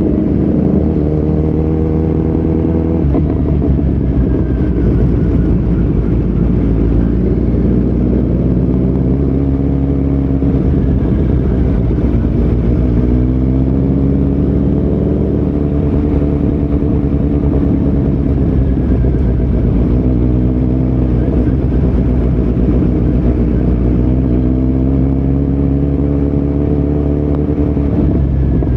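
2018 Kawasaki Z900's 948 cc inline-four engine running through Yoshimura muffler and Delkevic headers with no dB killer, on the move. The exhaust note rises and falls again and again as the throttle opens and closes.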